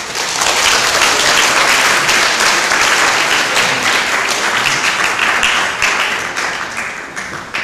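Audience applauding, a dense patter of many hands clapping that holds steady and then dies down over the last second or so.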